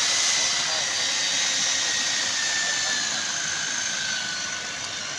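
Model 11E electric demolition breaker's motor running with a loud, steady high whine, its pitch sagging a little in the second half.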